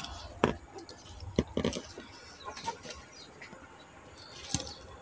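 Chickens clucking a few times, in short separate calls.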